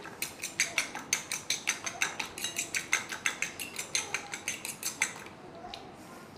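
A fork beating a raw egg in a plate, its tines clicking against the plate about five times a second. The beating stops about five seconds in.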